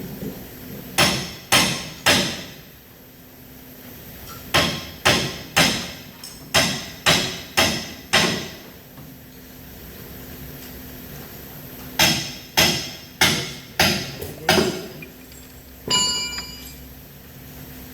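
Sharp hammer-like tool strikes, in three bursts of about two a second with pauses between them. A last strike near the end leaves a short metallic ring.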